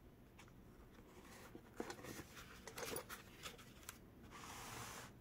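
Faint handling sounds: a few small clicks and taps of fingers on a foam parts tray and its packed parts, then a soft rubbing about four seconds in as the foam tray is slid up out of the cardboard box.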